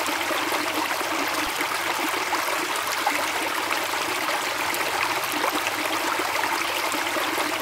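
Running water, a steady even rush that does not change.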